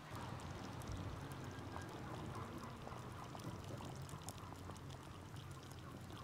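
Lamb broth bubbling in a clay dizi pot over a wood fire, a steady burbling hiss with small sharp crackles from the burning wood.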